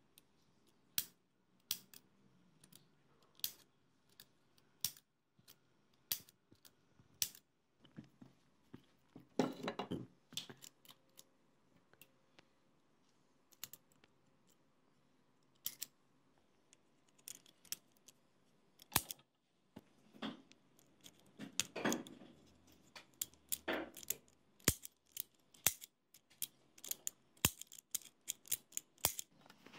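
Irregular sharp clicks and small rattles of metal and plastic parts on a juicer blender's push-button switch bank, as its springs and plungers are handled and plastic button caps pressed on, with a few short scraping rubs in between.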